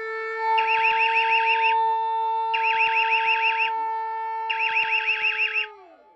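Alarm: a steady two-note drone with three bursts of rapid warbling beeps, about two seconds apart, laid over it. Near the end it winds down, falling in pitch as it dies away.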